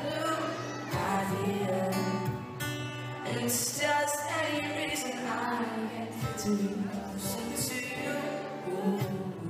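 A male singer singing live into a microphone, accompanied by guitar.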